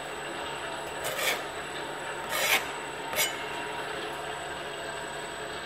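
Homemade kite-line coating rig running with a steady mechanical hum, broken by three short rasping scrapes about a second, two and a half and three seconds in.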